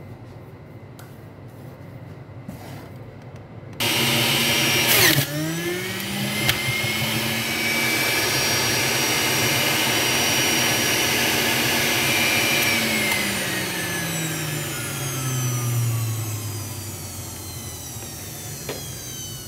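Electric juicer motor switched on about four seconds in, spinning up and running steadily, then switched off after about nine seconds, its pitch falling as it winds down over about three seconds.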